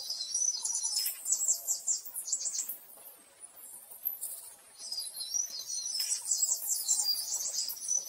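Birdsong: high-pitched chirps, warbles and quick trills from several calls overlapping, easing off briefly about three seconds in before picking up again.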